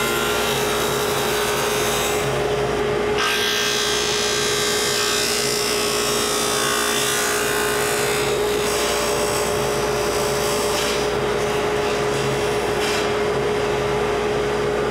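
Table saw running with a dado stack, cutting a stopped dado groove in a plywood panel. A steady motor hum sits under the cutting noise, which is strongest from about three to eight seconds in while the board is fed through.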